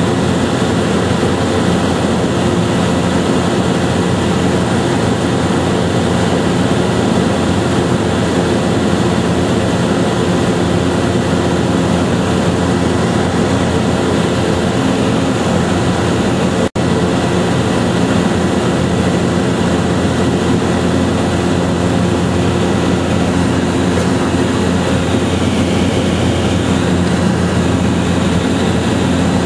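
Steady, loud mechanical drone with a constant hum in it, of the kind an engine running at a fixed speed makes. It cuts out for an instant about 17 seconds in.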